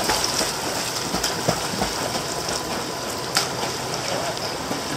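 Steady rush and splash of pool water from jets spraying out of the pool wall, with a German Shepherd puppy paddling and splashing through it. A sharper splash comes a little past three seconds in.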